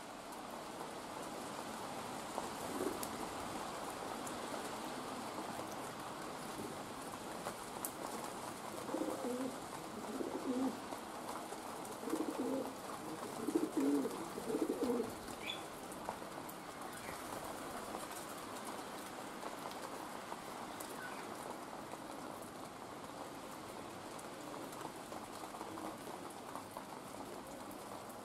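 Steady hiss of rain, with a city pigeon cooing in a few short low phrases about nine to fifteen seconds in.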